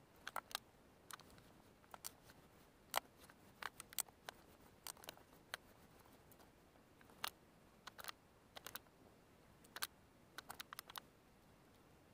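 A small metal pick scraping and gouging pits into a block of dyed gym chalk, making short crisp scratches and clicks at irregular intervals as the chalk crumbles away.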